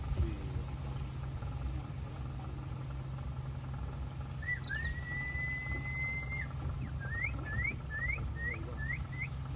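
Steady low hum of a boat's motor. About halfway through comes a clear whistle: one long held note, then six short rising chirps.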